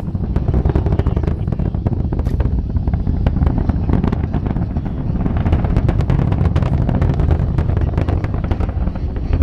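Space shuttle Endeavour's launch sound reaching distant spectators: a continuous deep rumble shot through with rapid, ragged crackling from the rocket exhaust.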